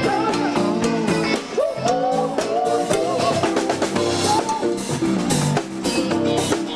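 Music: a rock song with a singing voice over a drum kit, with drum hits keeping a steady beat.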